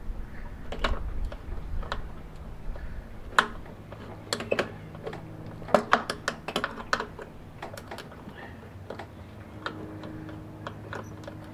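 Irregular metallic clicks and taps of a hand wrench turning a stubborn nut off a bolt in a label printer's sheet-metal chassis. The nut is binding and stays tight the whole way off.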